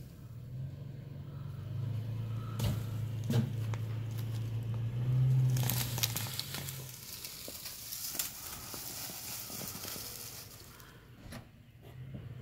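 Pickup truck engine running and pulling on a rope tied to a large bush, swelling about five seconds in, with a burst of crackling as the truck strains to rip the bush out of the ground. It dies down for a few seconds, and the engine hum returns near the end.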